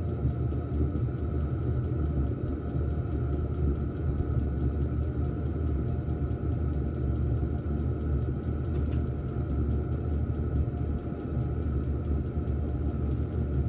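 Diesel air heater running steadily on its lowest setting after firing up: an even, unbroken low rumble with a steady higher tone over it.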